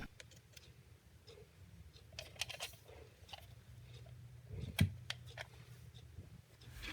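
Faint handling noises from a TS-297/U multimeter being handled: scattered small clicks and light taps, with one louder knock near the end.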